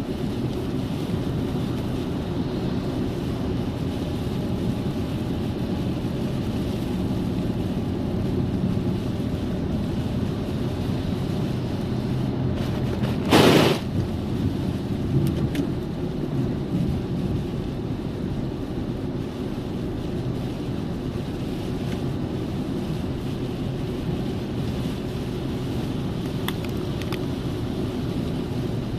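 Steady rain with a low rumble of wind on the microphone, and a brief loud burst of noise about halfway through.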